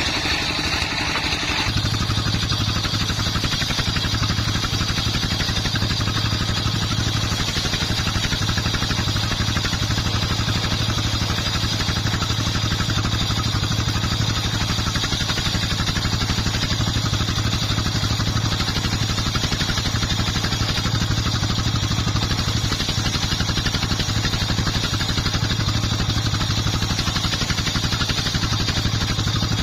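Dongfeng 24 hp single-cylinder diesel engine running steadily, driving a homemade circular saw. A harsher, noisier layer above the engine drops away about two seconds in, leaving the engine running alone.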